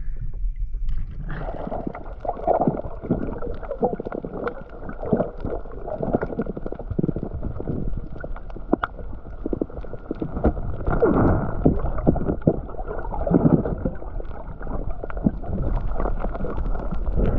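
Muffled underwater gurgling and bubbling through a submerged camera housing, with scattered clicks and knocks and louder bubbling surges around the middle and near the end.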